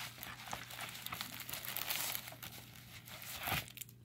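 Cardboard mailer being opened by hand: irregular crinkling, crackling and tearing of cardboard and packaging, dying down near the end.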